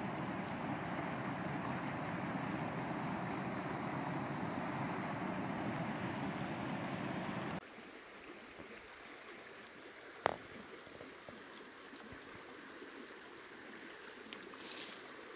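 Steady rush of a fast river running over rocks, which cuts off abruptly about halfway through to a much quieter hush. A single sharp click sounds a few seconds later, with a few faint ticks near the end.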